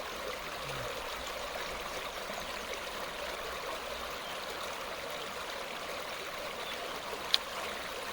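Steady rushing and trickling of a small mountain stream flowing over rocks, with one sharp click about seven seconds in.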